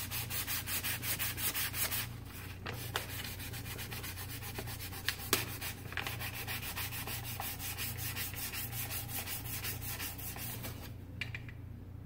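Hand sanding a knife handle with sandpaper, in quick back-and-forth strokes of about four a second that stop about eleven seconds in. A steady low hum lies underneath.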